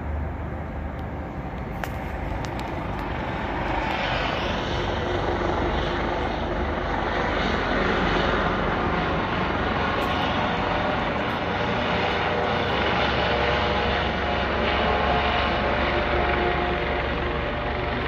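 Police helicopter flying overhead, a steady rotor and turbine noise that grows louder about four seconds in as it comes nearer.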